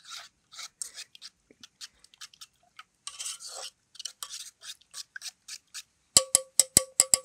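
Fork whisking thick batter in a metal bowl: quick wet scraping strokes and light clicks against the metal. About six seconds in, a run of loud, sharp ringing clicks starts, speeding up to several a second.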